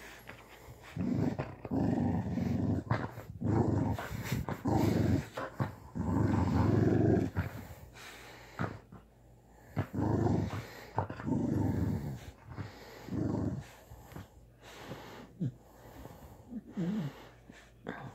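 Dog growling playfully during rough play with a toy and a person's hand: a run of low growls about a second long each, which die down about three-quarters of the way through, leaving a few short knocks and small sounds.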